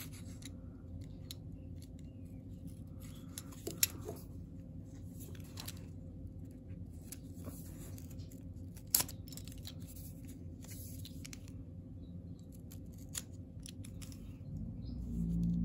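Yellow snap-off box cutter slitting open a paper mailer envelope: quiet cutting and scraping, with a few sharp clicks scattered through.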